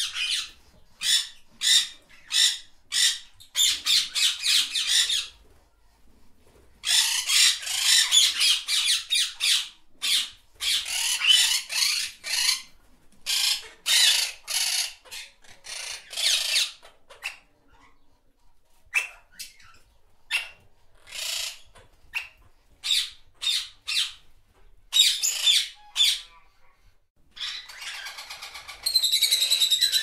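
Budgerigars (pet parakeets) chirping and chattering in quick runs of short, high calls with brief pauses. Near the end they break into a denser, more continuous warble.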